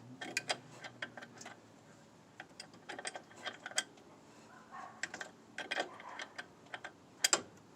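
Ratchet wrench with a crow's foot clicking in short, irregular runs while it turns a brake line fitting into a master cylinder, with light metal taps.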